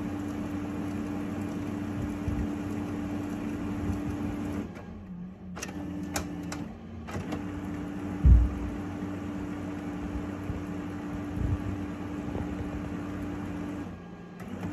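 Brother DCP-9020CDW printer running its internal motors and fan while it prepares to print: a steady hum with a held tone that stops briefly three times. A few clicks come about six seconds in, and a low thump about eight seconds in.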